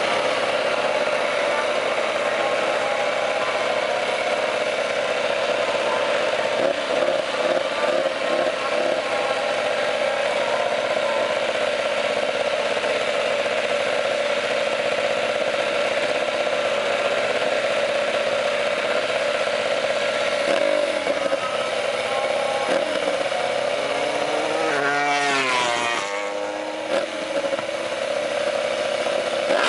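Racing motorcycle engine running at steady high revs, then its pitch drops and climbs again from about 24 to 27 seconds in, as the revs come down and build back up.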